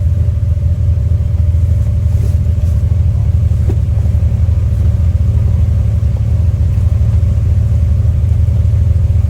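Side-by-side UTV engine running steadily with a loud, even low rumble.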